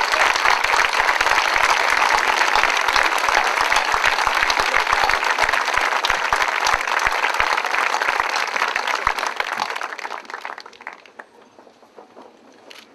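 A large crowd applauding, a dense steady clapping that dies away about ten seconds in.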